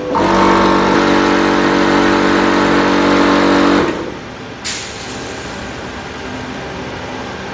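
An engine or motor running at a steady pitch, which cuts off abruptly about four seconds in. A brief sharp hiss follows shortly after, then a quieter steady hum.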